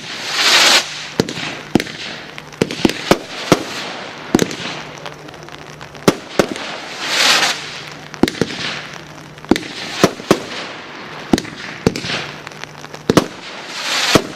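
A Wolff Ammo Crate firework going off: a run of sharp bangs at irregular intervals, broken by several longer hissing crackle rushes.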